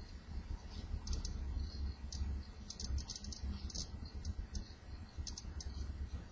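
Hockey trading cards being handled and sorted by hand: irregular short clicks and light rustles as the cardboard cards slide and tick against each other.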